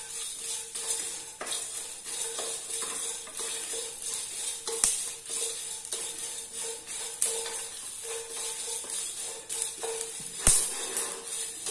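Wooden spatula stirring and scraping whole spices and dried bedgi chillies as they dry-roast in a metal pot, over background music. There are a couple of sharp knocks; the loudest comes near the end.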